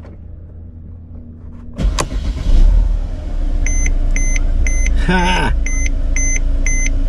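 A 2013 Mercedes-Benz C250's turbocharged four-cylinder engine cranks and fires about two seconds in, then settles into a steady idle, heard from inside the cabin. From about three and a half seconds a dashboard warning chime beeps repeatedly, about two beeps a second.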